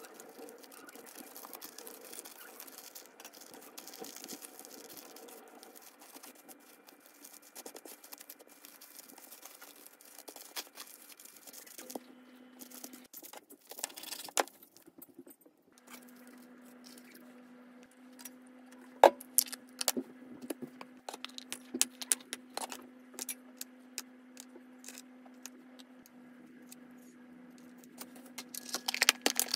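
Plastic cling film crinkling and rustling as a nori-wrapped rice sandwich is folded and wrapped, with a knife cutting through the wrapped sandwich about midway. In the second half come many sharp clicks and taps over a low steady hum, busiest near the end.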